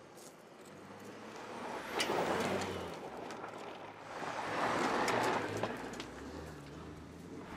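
2018 Ford Expedition's twin-turbo EcoBoost V6 pulling the SUV along a dirt trail, with its tyres crunching and scattering gravel and loose stones. The sound swells twice, about two seconds in and again around five seconds, as the SUV passes close.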